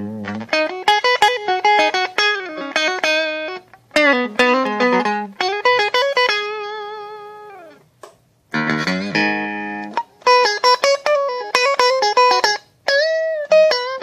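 Fender Japan '69 reissue Stratocaster electric guitar played lead: quick single-note phrases with string bends and vibrato. Near the middle a long vibrato note rings out and fades, followed by a short gap, a strummed chord and more fast runs.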